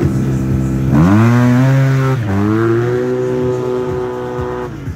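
Yamaha TMAX maxi-scooter engine with an aftermarket exhaust idling, then revving hard about a second in as it launches, its pitch sweeping up. It dips and climbs again, then holds one high, steady pitch under full throttle until it cuts off just before the end.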